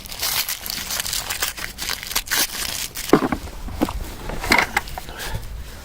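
Irregular crunching and crinkling handling noise, with a few louder knocks from about three seconds in.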